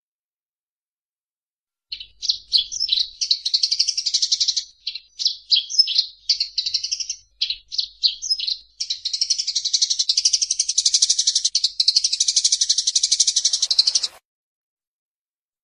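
Eurasian tree sparrows calling in a fight. After about two seconds of silence comes a run of sharp, separate chirps. About nine seconds in, these break into a fast, continuous chatter that cuts off abruptly near the end.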